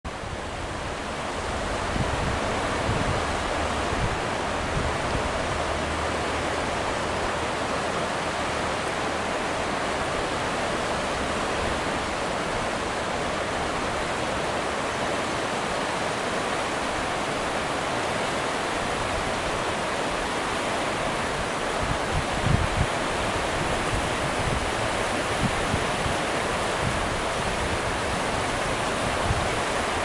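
River rapids rushing over and around boulders: a steady, unbroken wash of whitewater, with a few brief low thumps about two-thirds of the way in.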